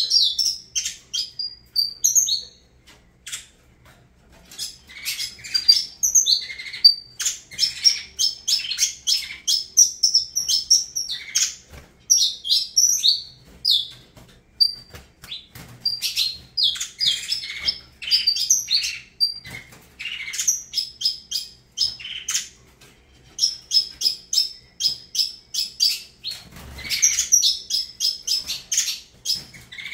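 Saffron finch (canário-da-terra) singing: long phrases of quick, high chirps and trills, broken by a few short pauses.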